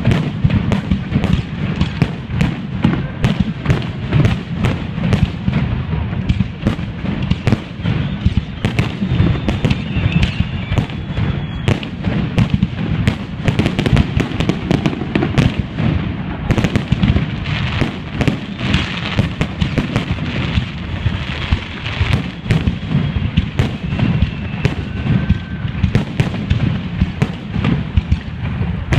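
Fireworks display: a dense, continuous barrage of aerial shell bursts and crackling bangs, several every second, over a rolling low rumble, with a few faint whistles of rising shells.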